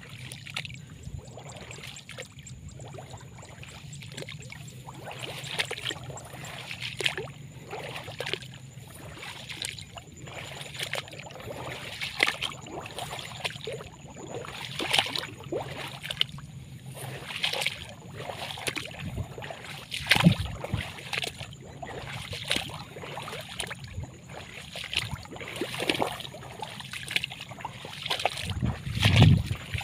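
Irregular sloshing and splashing of water in many short, uneven strokes. A faint steady low hum runs under it for roughly the first half. There is a louder knock about twenty seconds in and a low thump near the end.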